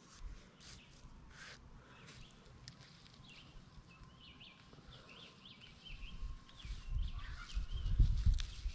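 Birds chirping faintly a few seconds in. Near the end come low, uneven knocks and rustling from hands digging through garden soil for potatoes.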